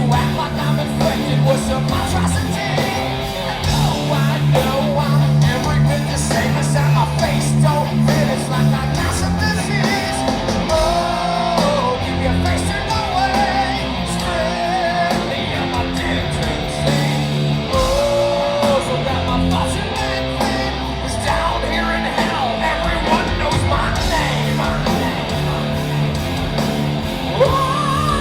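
Heavy metal band playing live: distorted electric guitars over bass and drums in a passage without lyrics, with a wavering melodic line in the middle and a high held note starting near the end.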